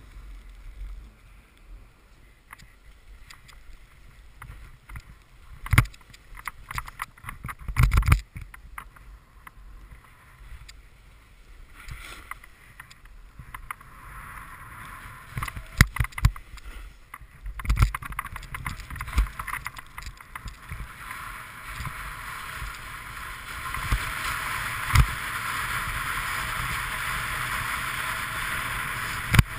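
Snowboard sliding over hard, wind-packed snow: a scraping hiss of the base and edges that builds from about halfway and grows louder and steadier near the end. Scattered sharp knocks run through it.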